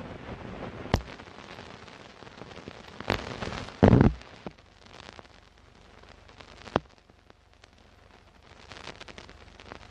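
Television static: a steady hiss of white noise with scattered crackles and sharp clicks. A louder burst of crackle comes about four seconds in, and the hiss is quieter in the second half.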